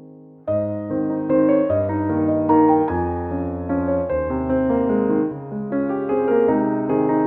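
Background piano music. A quiet, fading passage comes in again loudly about half a second in with a run of ringing piano notes.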